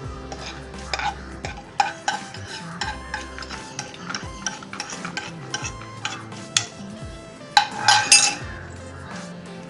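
Steel spoon scraping and clinking ghee-fried cashews out of a nonstick pan into a glass bowl of powdered rava and sugar, in many short scrapes and taps, with a louder clatter about eight seconds in.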